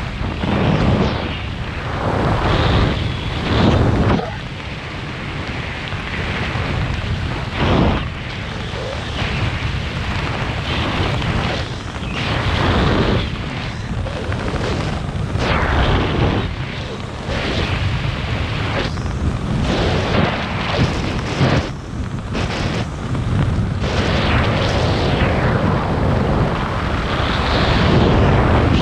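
Wind buffeting a skydiver's head-mounted camera microphone during a descent under an open parachute: a loud, uneven rushing rumble that surges in gusts every few seconds.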